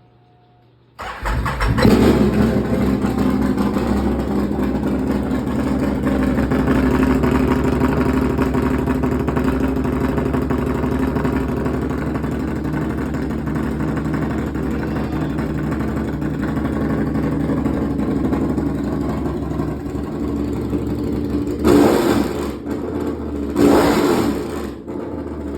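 Can-Am 1000's V-twin engine starting about a second in and running loud through an SLG exhaust gutted of its packing, with a megaphone outlet, then two short revs near the end.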